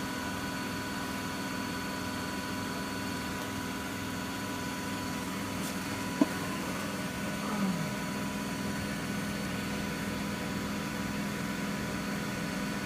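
Miele W Classic WDA110 washing machine spinning at high speed, its drum and motor giving a steady hum with a constant whine. A single sharp click comes about halfway through, followed shortly by a brief falling squeak.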